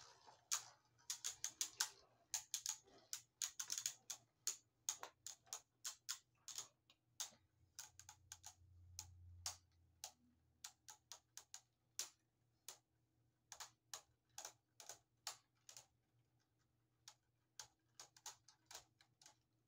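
Two Beyblade Burst spinning tops clashing in a plastic stadium: a rapid, irregular run of sharp clicks and clacks, crowded together in the first few seconds and coming less often later on.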